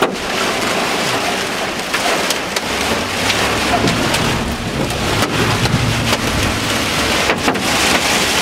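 Heavy rain and hailstones drumming on a vehicle's roof and windshield, heard from inside the cabin, with frequent sharp hits. A low rumble swells through the middle.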